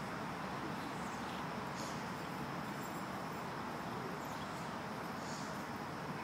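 Steady outdoor background noise with a few faint high chirps.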